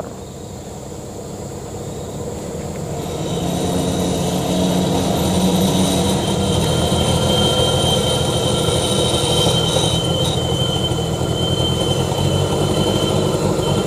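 Ragasa truck's diesel engine working under load as its PTO-driven winch, built from a differential, winds in the wire rope to drag the truck out of the ditch. It builds up over the first few seconds and then holds steady, with a high whine over it.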